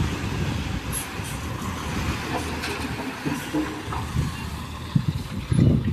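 Load of soil and rocks pouring out of a 12-wheeler dump truck's raised tipper body, a steady rushing with scattered clatters of stones, over the truck's running engine. A louder low rumble comes in near the end.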